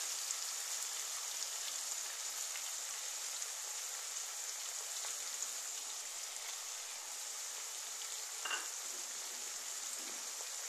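Onions and tomatoes sizzling in mustard oil in a non-stick frying pan: a steady frying hiss. A single brief knock sounds about eight and a half seconds in.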